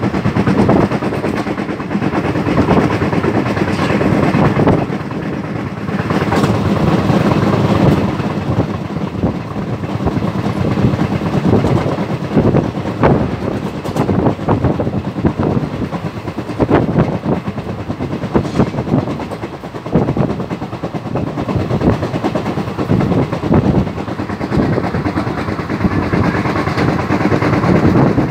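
Passenger train coach running at speed, heard from its open doorway: a steady rumble with the wheels clacking irregularly over the track.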